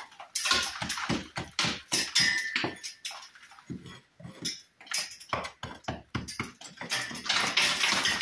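A hand hammer chipping into soft, damaged brick faces: a run of irregular sharp knocks and scrapes, easing off briefly about halfway through. The bricks are being cut back to a recess to take cut brick slips.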